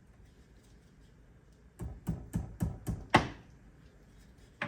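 Hammer tapping a U-joint keeper into its groove on an ATV prop shaft. Six quick metallic taps, about four a second, and a single tap near the end.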